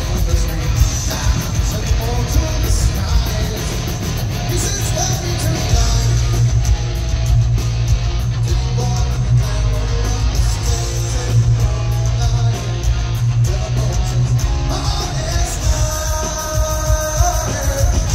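Live heavy metal band playing loudly: distorted electric guitar, bass guitar and drums under a male lead singer's vocals, with a heavy low end throughout and held sung notes near the end.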